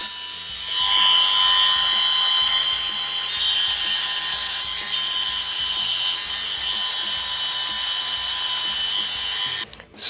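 Small handheld rotary tool running with an abrasive bit, polishing sharp edges off the metal crank arm of a spinning-reel handle. It is a steady high-pitched whine with grinding hiss that gets louder about a second in as the bit works the metal. It cuts off suddenly just before the end.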